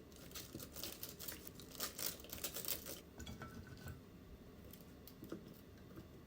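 A quick run of small crinkling, rustling handling noises for about three seconds, then quieter with only a few light ticks.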